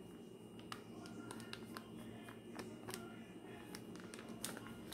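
Faint clicks and rustles of a plastic measuring cup scooping cornstarch from a plastic bag: a scattering of light ticks and taps.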